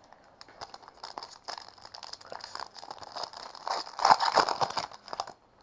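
A foil trading-card pack wrapper being torn open and crinkled, a run of crackling rustles that is loudest about four seconds in and stops shortly before the end.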